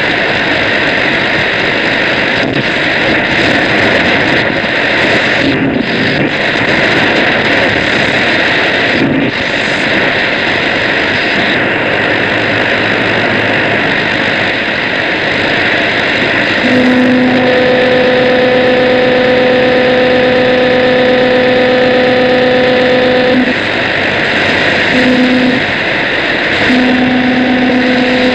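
Loud shortwave radio noise, a dense steady hiss and rush, drowning out the broadcast. About two-thirds of the way through, a steady low hum with a second tone an octave above comes in over it; it breaks off, then returns briefly twice near the end.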